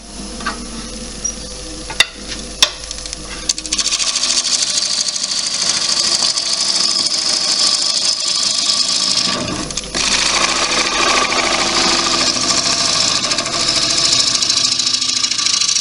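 Gouge cutting a spinning bowl blank of wet cherry wood on a wood lathe: a dense, steady scraping and shaving sound that begins a few seconds in, breaks off briefly around the middle, then goes on. Before the cut starts the lathe runs more quietly, with a couple of sharp clicks.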